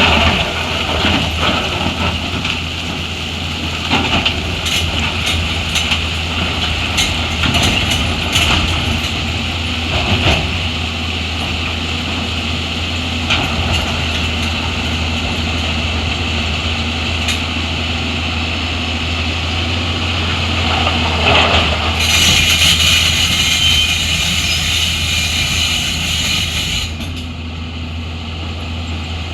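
Heavy machine's engine running steadily, with scattered sharp knocks. A hissing noise comes in about three-quarters of the way through and cuts off a few seconds later.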